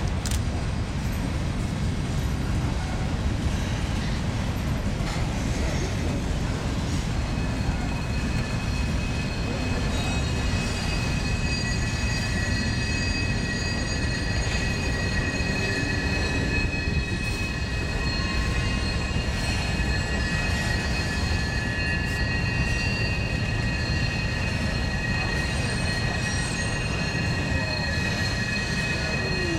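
Freight train cars rolling past with a steady low rumble. From about ten seconds in, several high, steady wheel squeals ring out over the rumble and keep on.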